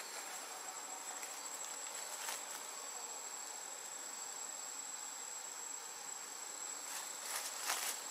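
Steady insect chorus in tropical woodland, with one high, unbroken tone running through it. A few brief rustles come through, one a couple of seconds in and a cluster near the end.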